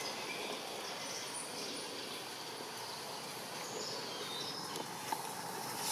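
Steady outdoor background noise with scattered faint, short high chirps, and a small click about five seconds in.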